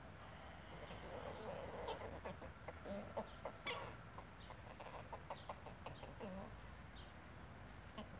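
A flock of chickens clucking as they peck and forage: a quick run of short, fairly quiet clucks, busiest from about one to six seconds in.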